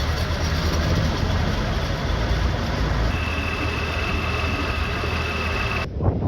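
Tractor engines running with a steady deep rumble. A steady high-pitched whine joins about halfway and stops shortly before the end, where the sound changes abruptly.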